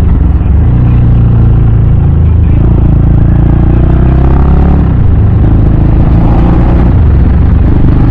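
Single-cylinder 600cc Husqvarna engine of a CCM Maverick motorcycle under way, heard from the rider's seat. Its revs climb for a couple of seconds, drop sharply about five seconds in, then hold steady.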